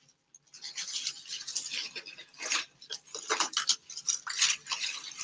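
Packaging being handled and pulled away from a new air fryer: irregular rustling and scraping in short bursts.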